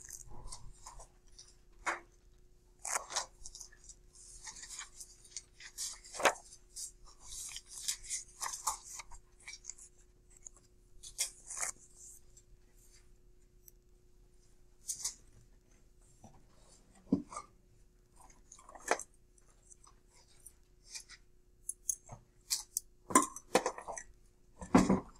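Paper rustling and handling with scattered small knocks and clicks, over a faint steady hum.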